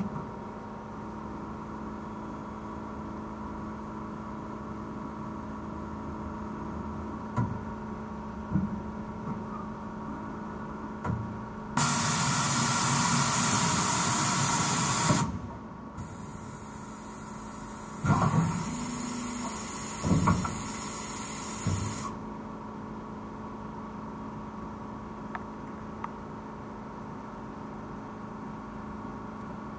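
Stama MC 230/H CNC horizontal machining centre running with a steady hum of constant tones, with a few clunks. About twelve seconds in a loud hiss starts and lasts about three seconds, then a second, quieter hiss with a couple of clunks runs for about four seconds.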